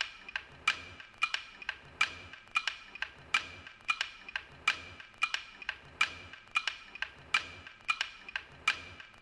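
A rhythmic percussion loop from a music track: sharp clicks, each with a short bright ring, in a steady beat, a strong hit about every two-thirds of a second with lighter hits between.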